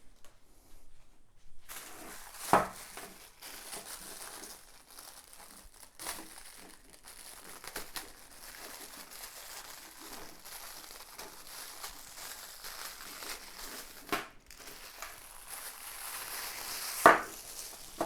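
Packaging being peeled off a new space heater and crumpled, a continuous crinkling with a few sharp louder crackles, the loudest near the end.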